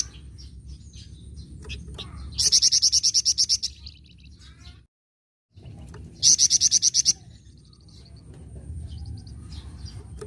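Flamboyan songbird giving its rapid high chattering trill ('nyecret'): two bursts of about a second each, a few seconds apart, each a quick run of a dozen or so sharp notes. A steady low rumble sits underneath, and the sound drops out completely for a moment between the two trills.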